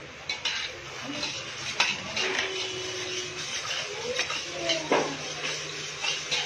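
A spoon stirring in a container, clinking sharply against its side several times at irregular intervals, as white sugar is stirred into the cider to dissolve.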